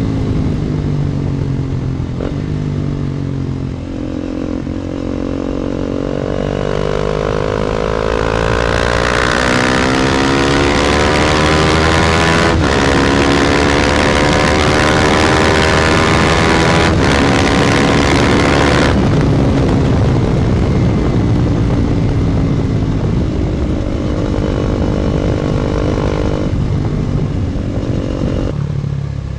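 KTM Duke 250's single-cylinder engine through an Akrapovic exhaust, pulling hard with its note rising, with two brief breaks along the way, then easing off about two-thirds of the way through and running steadier and lower. Heavy wind noise on the phone microphone while at speed.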